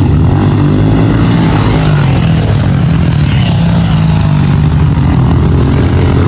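Pit bike engines running during a race: a continuous engine drone whose pitch shifts slightly.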